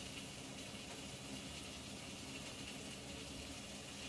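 Faint steady background hiss with a low hum: room tone, with no distinct sound standing out.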